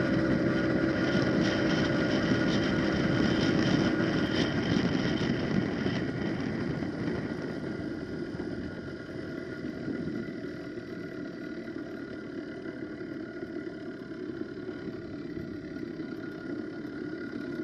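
Wildcat PK80 80cc two-stroke engine of a motorized bicycle running under way, with rushing wind and road noise. It runs steadily, then turns clearly quieter about seven seconds in as the bike eases off.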